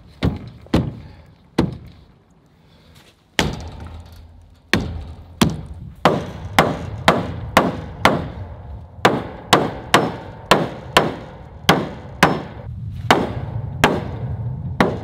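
Hammer blows on a wooden coop post where wire fencing is stapled: a few scattered strikes and a short pause, then a steady run of sharp strikes about two a second.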